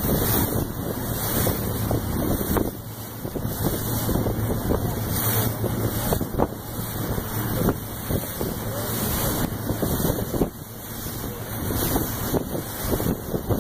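Tour boat under way: a steady low engine drone beneath gusty wind buffeting the microphone.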